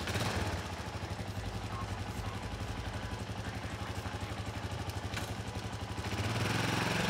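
A motor engine running steadily with a fast, even pulse, getting louder about six seconds in.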